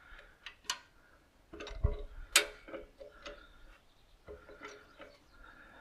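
Scattered light clicks and knocks, irregular and a second or so apart, the loudest about two and a half seconds in: tools and loose parts being handled while a loader frame is worked free.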